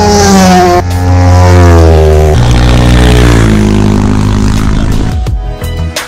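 Racing motorcycle engine at high revs passing by, its note dropping sharply as it changes up a gear about one second in and again about two and a half seconds in, then falling away and fading out about five seconds in.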